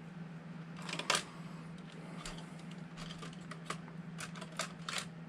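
Small parts of a 1/24-scale RC crawler clicking and tapping as they are handled and fitted by hand, a cluster of sharp clicks about a second in the loudest, with scattered clicks later. A steady low hum runs underneath.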